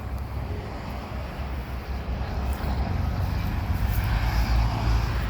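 Steady low rumble of a distant engine, growing slightly louder toward the end.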